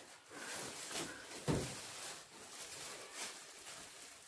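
Clear plastic wrapping rustling and crinkling as a laptop is slid out of it, with one dull thump about one and a half seconds in.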